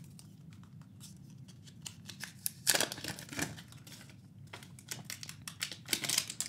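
Packaging being handled and pulled at: scattered light clicks and taps, with two brief bursts of rustling, about three seconds in and again near the end.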